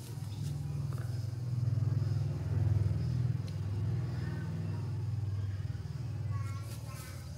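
Low, steady drone of a motor vehicle's engine, swelling over the first few seconds and then slowly easing off. A few brief higher-pitched sounds come near the end.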